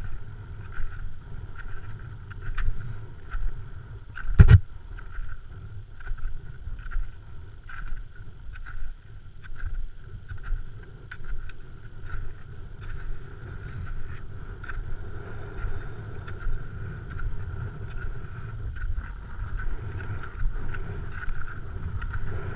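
Wind buffeting the microphone in gusts, with scattered light clicks and one sharp knock about four and a half seconds in.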